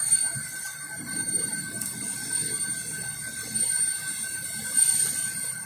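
CO2 laser marking machine running while engraving plywood: a steady high-pitched whine cuts in suddenly over a steady lower tone and low rumbling noise.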